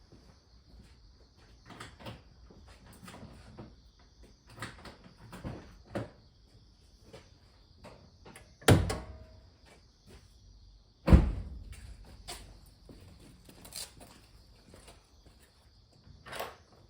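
Scattered clicks and knocks, with two loud thuds about two and a half seconds apart, the first followed by a short ringing.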